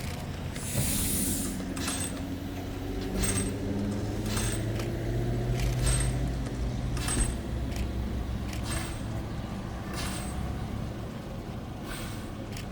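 A train running past slowly: a steady engine drone with a slight rise and fall in pitch, and a sharp metallic clack every second or so from the wheels and running gear.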